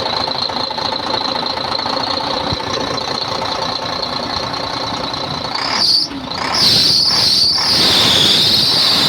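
Diesel engine of a HOWO 400 truck running after repair of its injection pump, with a steady high whine over it. About six seconds in a louder high-pitched hissing squeal comes in, briefly interrupted a couple of times.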